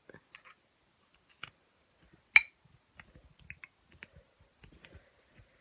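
Small plastic clicks and ticks as a clear plastic Z-Stack hub stack is worked off a Magic Yo-Yo N9 by hand, with one sharp, louder click a little over two seconds in.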